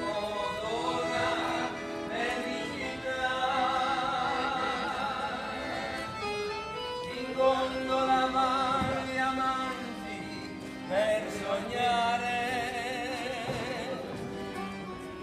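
A man singing a serenade from a gondola in an operatic style, holding long notes with a wide vibrato.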